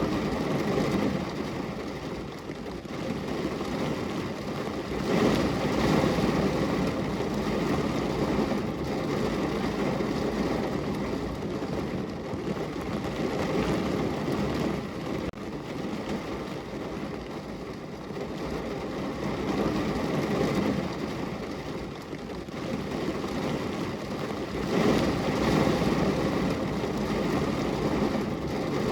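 Rain falling on a car's windows and body, heard from inside the car: a steady rush of rain that swells louder about five seconds in and again near the end.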